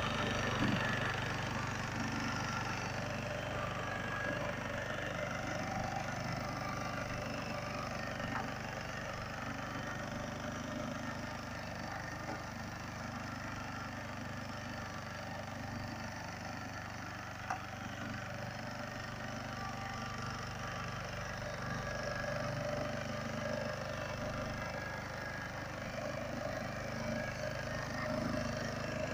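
Pasquali two-wheel walking tractor with a rear rotary tiller, its small engine running steadily under load as the tines churn the soil. Two brief sharp knocks, the sharper one a little past halfway.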